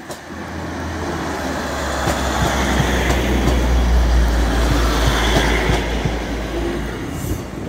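Class 156 diesel multiple unit pulling out and passing close by: the deep rumble of its underfloor Cummins diesel engines under load, with wheel and rail noise and light clicks. The sound builds to a peak about halfway and fades as the train draws away.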